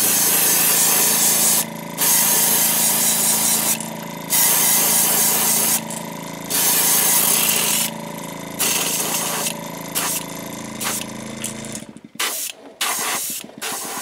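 Airbrush hissing in bursts of a second or two, about five in a row, then a few shorter puffs near the end, spraying a black base coat onto a fishing lure. A faint steady hum runs underneath.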